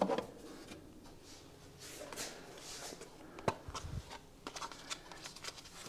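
Faint rustling and light knocking of small objects being moved while rummaging through a cabinet and across a workbench, with one sharp click about three and a half seconds in.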